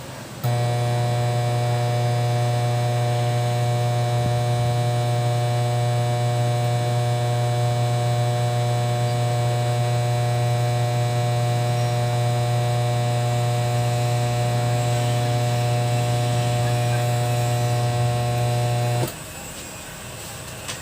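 Kevler KR-310A powered speaker giving out a loud, steady, buzzy mains hum, the humming fault the unit has. It comes on suddenly about half a second in and cuts off suddenly near the end.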